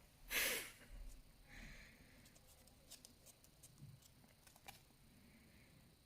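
Quiet sounds of a tiny puppy: a short breathy puff about half a second in and a faint squeak, then scattered light clicks and taps as it moves about.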